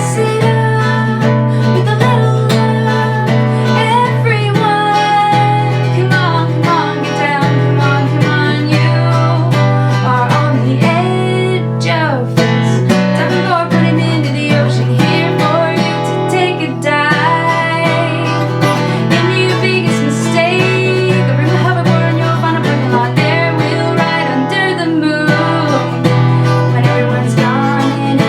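A woman singing an original song while accompanying herself on acoustic guitar.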